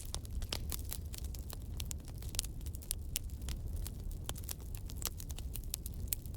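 Wood campfire burning, with frequent sharp crackles and pops at an irregular rate over a low steady rumble.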